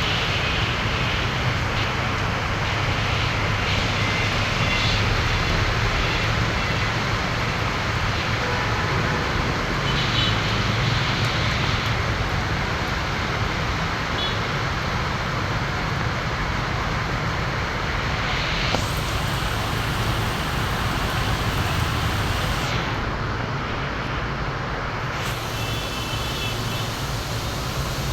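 Steady, loud noise of heavy rain, with a low engine hum from road traffic underneath.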